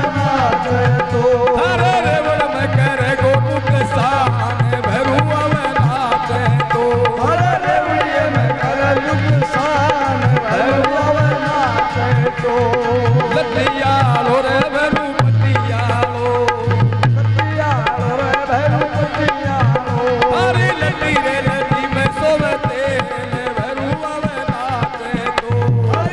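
Rajasthani folk bhajan performed live: a man sings through a microphone and PA over harmonium, with a dholak beating a steady rhythm underneath.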